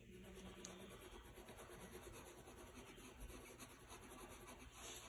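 Faint scratching of a black felt-tip marker on paper as it colours in a small area of a drawing.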